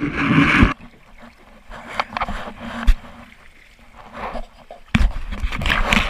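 Water splashing and sloshing around a kayak being handled in the river, in bursts: a loud one at the start, smaller splashes and a knock about three seconds in, and another loud stretch near the end.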